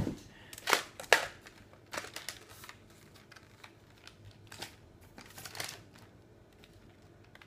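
Plastic clicks and rattles from handling a green toy lightsaber as its telescoping blade is pulled out, a few sharp clicks in the first couple of seconds and sparser ones after.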